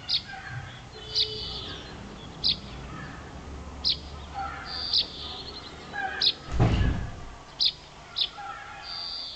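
A small bird chirping sharply and repeatedly, about once a second, with fainter calls between. A brief loud low rumble comes about two-thirds of the way through.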